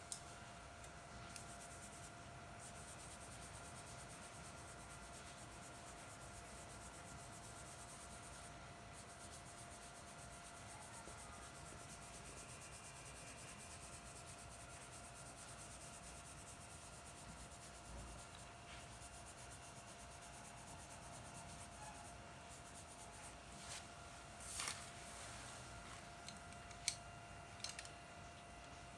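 Faint scratching of a charcoal pencil shading on drawing paper, over a low steady hum. A brief louder rub comes near the end, followed by a few sharp clicks.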